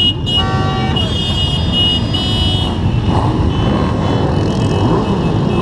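Many motorcycle engines running at idle in a crowded group, a steady low rumble, with several short horn toots sounding over it.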